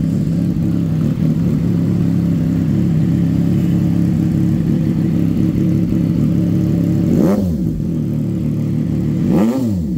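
CFMOTO 675 SR-R inline-three idling steadily through a newly fitted aftermarket half-system exhaust, then blipped twice, about seven seconds in and near the end, each rev rising quickly and dropping back to idle.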